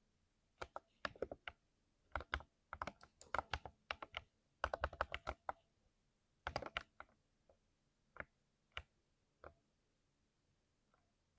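Typing on a 60% mechanical keyboard with lubed switches: quick runs of keystrokes, then three single presses spaced apart, and a few faint taps near the end.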